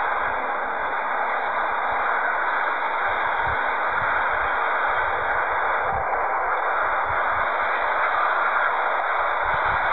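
Steady rushing noise of a distant Airbus A350's Rolls-Royce Trent XWB jet engines on the takeoff roll, with irregular low thumps of wind buffeting the microphone.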